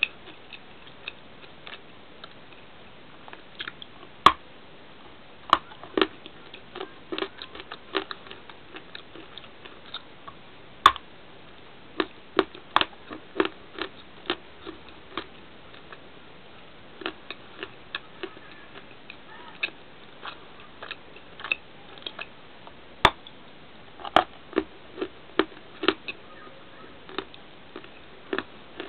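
Crunchy bar being bitten and chewed close to the microphone: irregular sharp crackles and snaps, a few much louder crunches among many softer ones.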